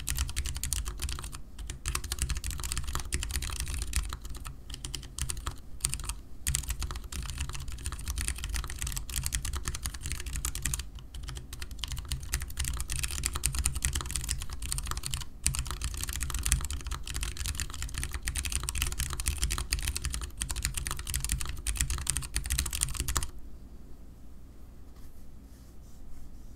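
Fast, continuous typing on a Vortex Core mechanical keyboard with lubed Ergo Clear switches (Cherry MX Clear stems on Gateron Yellow springs) and dye-sub DSA keycaps. The key clicks run with a few brief pauses, then stop about three seconds before the end, leaving a faint low hum.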